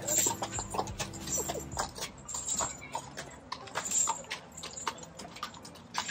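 Horse's hooves clip-clopping on a hard surface as it pulls a carriage past, an uneven run of knocks.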